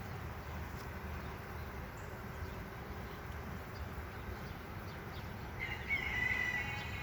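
Steady hum of honey bees around an opened hive. Near the end a bird calls once, a held high note lasting about a second and a half.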